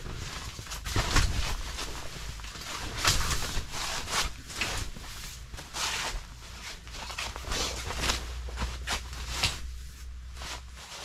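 A folding camp cot being handled and set upright on a tent floor: an irregular run of short knocks, scrapes and rustles from its frame and fabric, with footsteps on the tent floor.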